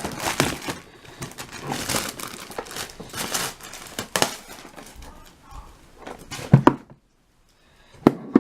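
Packaging of a new GoPro camera box crinkling and tearing as it is opened by hand, followed near the end by two sharp knocks about a second and a half apart.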